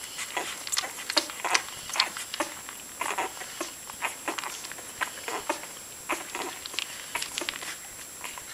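Newborn chocolate Labrador puppies suckling at their mother's teats: a busy, irregular run of short smacking and sucking sounds, several a second, mixed with small squeaks.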